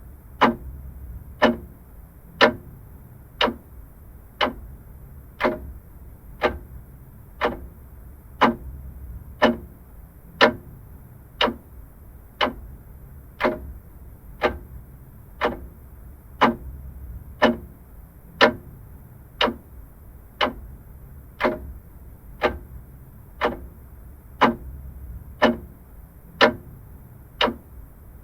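Vintage mechanical clock ticking steadily, about one sharp tick a second.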